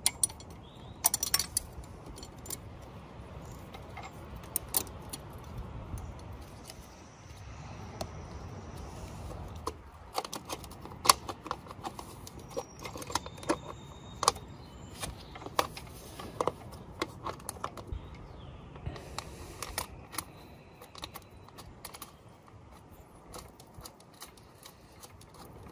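Metal hand tools clinking and clicking against motorcycle parts as a small wrench works on the gear shift linkage, in irregular sharp clicks with a low steady rumble underneath.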